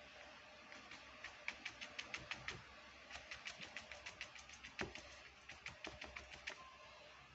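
Rapid light ticking of a fan brush's bristles dabbing against a canvas board on a wooden easel, in three short runs of about seven taps a second, with one louder knock about five seconds in.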